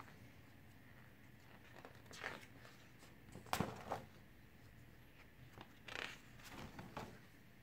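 Stiff pages of a ring-binder photobook being turned by hand: a few faint, short swishes and rustles, with one sharper flap about halfway through.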